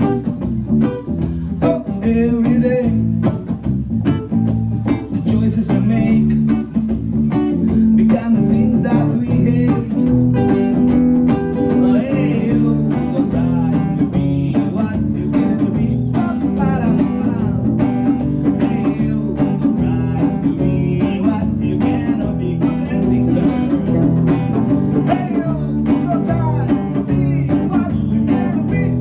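Live band music: guitar over bass guitar and drums, playing a bluesy song at a steady beat.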